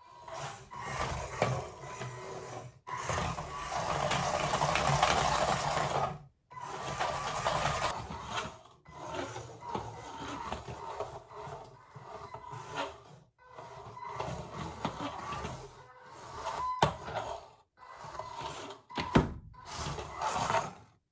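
A beetleweight combat robot's drive motors whirring as it drives over a wooden floor, in bursts a few seconds long that stop and start again. There are a few sharp knocks in the second half.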